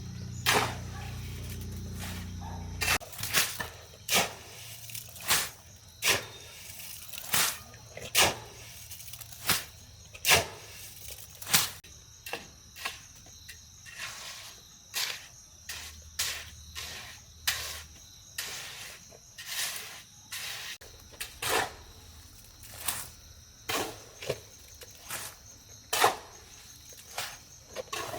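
A low steady hum that cuts off about three seconds in, followed by a long series of sharp knocks or scraping strokes, roughly one a second.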